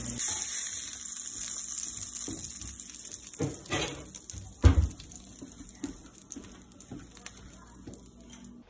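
Hamburger patty sizzling in oil in a stainless steel frying pan, a loud hiss at first that slowly tapers away. Several knocks and clinks of the pan and utensils come in the middle, the loudest about four and a half seconds in.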